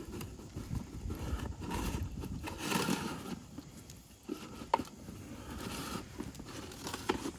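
A dog nosing into and pushing a folded cardboard box of treats: cardboard rustling, crinkling and scraping over asphalt in irregular bursts, with a few sharp knocks.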